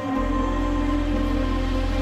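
Background music: slow, ambient-style chords over a deep sustained bass note that swells in just after the start and drops out right at the end.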